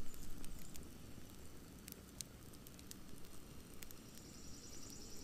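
Wood campfire crackling, with scattered sharp pops over a low rumble. Near the end a high, steady trill starts.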